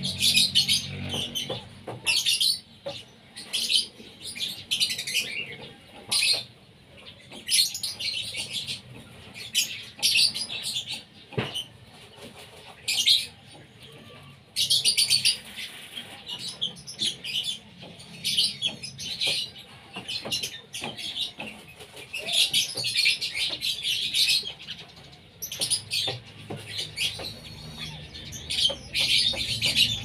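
Whistling ducks and their ducklings calling: rapid clusters of high-pitched peeps and whistles, coming again and again with short pauses between them.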